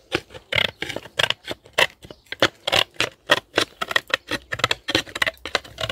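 Hand slate cutter trimming the edge off a roof slate in quick repeated cuts, about three sharp snips a second.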